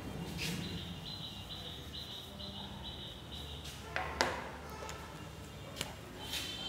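Faint insect chirping: short pulses at one steady high pitch, about two to three a second, stopping about two thirds of the way through. Two sharp clicks come just after the chirping stops.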